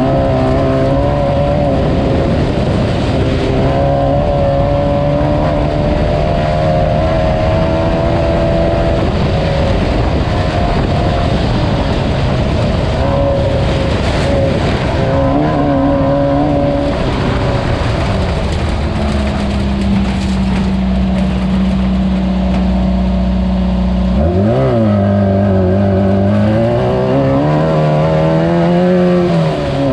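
Class 9 desert race car's engine running hard under load, its pitch wavering with throttle and gear changes over the rumble of the car driving over rough ground. It holds a steady pitch for several seconds past the middle, then revs up and down repeatedly near the end.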